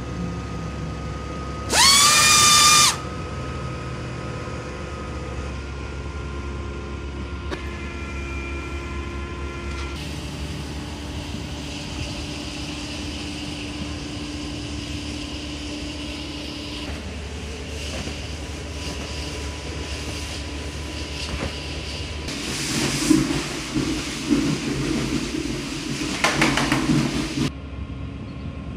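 Truck-mounted pneumatic screed pump running steadily while conveying sand-cement screed through its delivery hose. About two seconds in, a loud whistling tone rises in pitch and holds for about a second, and near the end there are louder, irregular rushing surges.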